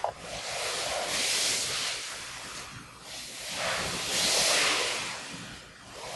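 A person rolling side to side on a floor mat in a spinal rotation stretch: two long swishing swells of breath and clothing rustle, about three seconds apart.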